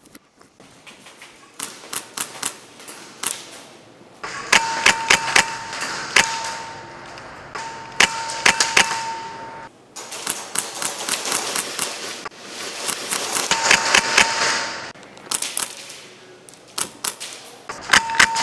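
Airsoft guns firing: sharp single clicks and quick strings of shots, with two long rattling full-auto stretches of several seconds each. A steady high tone comes and goes during the bursts.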